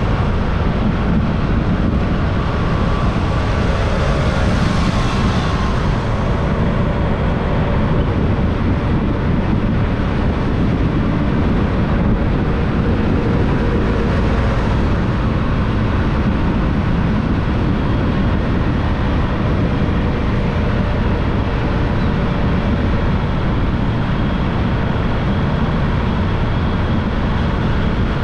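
Motorbike ride noise: a steady rush of wind on the microphone and road noise, heaviest in the low end, with the engine running underneath. A brighter hiss swells briefly about four to six seconds in.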